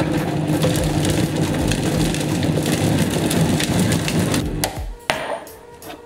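Vitamix Total Nutrition Center blender running at speed, blending a smoothie; it shuts off about four and a half seconds in, followed by a single knock.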